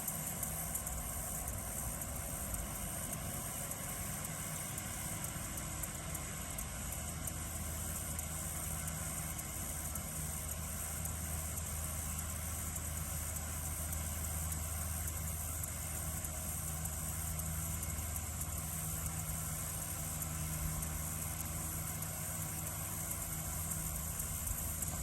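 Tractor engine running steadily while cutting hay, a low even hum. Crickets keep up a steady high chirring.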